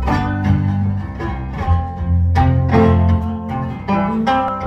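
Blues guitar played solo on a National steel resonator guitar: a run of picked treble notes ringing over a sustained bass line.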